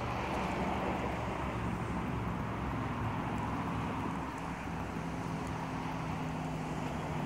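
Norfolk Southern diesel-electric locomotives moving slowly, their engines giving a steady low drone that shifts slightly in pitch.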